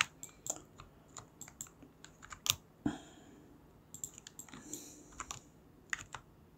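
Irregular clicking of computer keyboard keys and a mouse, single clicks and short runs with gaps between them.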